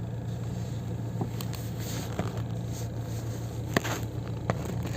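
Steady low hum of a Hyundai Getz with the engine running, with about four short sharp creaks or clicks from the squeaky clutch.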